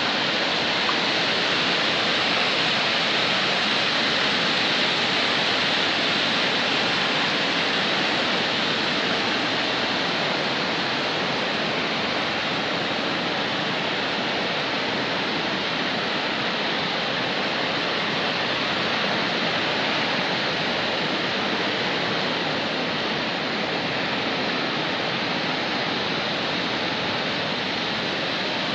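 Water pouring out of a dam into churning whitewater below: a steady, unbroken rushing noise that stays even throughout.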